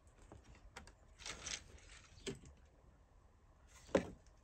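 Faint, irregular clicks and rattles from a Hornby 8F OO-gauge model locomotive catching on the track points, its wheels having come off the rails. There is a sharper click near the end.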